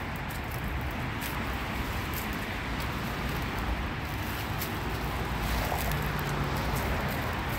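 Steady city street traffic noise, a constant low rumble of passing cars, with a faint engine hum in the second half.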